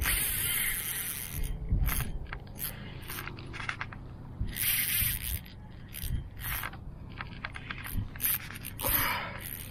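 Fishing reel being cranked in short, irregular spurts, a mechanical winding sound, as a jig is retrieved.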